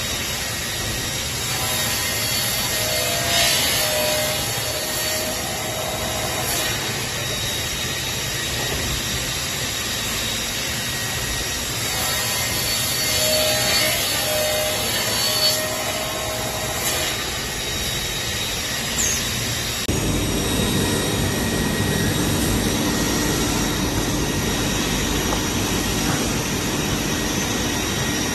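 Holztek CNC running-blade panel saw at work, a steady motor whine over machine noise. The blade cuts through a stack of wooden blanks about three seconds in and again around thirteen to fifteen seconds. About two-thirds through, the sound changes abruptly to a lower, louder machine hum.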